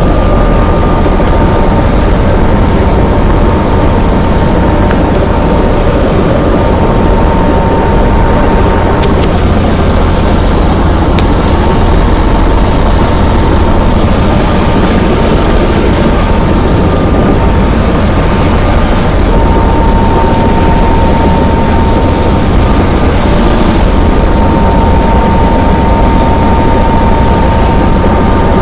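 Helicopter running steadily on the ground: a loud low rumble with a steady high whine over it, heard inside the cabin with the door open.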